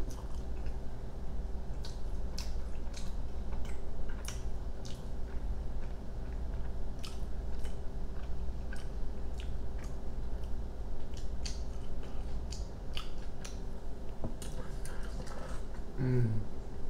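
Close-miked chewing of a mouthful of burrito: irregular wet clicks and smacks of the mouth over a steady low hum. Near the end there is a short hummed "mm".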